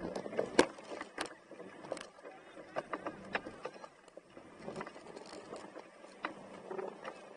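Jeep rolling slowly over rock and gravel: irregular sharp clicks and knocks of stones under the tyres, over a faint low engine hum.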